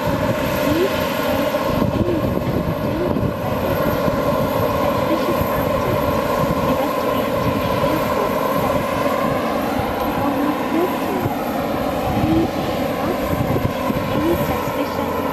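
Turboprop engines of a De Havilland Canada Dash 8-400 taxiing: a steady drone with a held whine over it.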